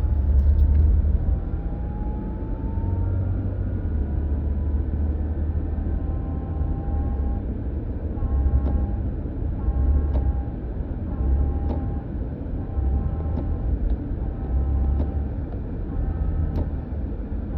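A 2022 Toyota Highlander with a thin whine over a steady low rumble. The whine rises in pitch over the first few seconds, then keeps cutting in and out. It is an unwanted noise for a vehicle with only 36,000 miles.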